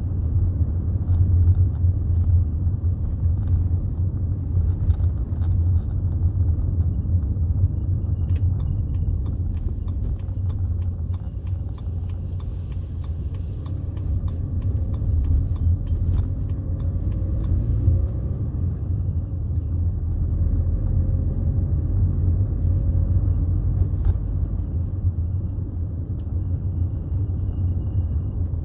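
BMW 320d E91's 2.0-litre four-cylinder turbodiesel and the car's road noise while driving: a steady low rumble. A faint rising tone comes in a few times around the middle, along with scattered light ticks.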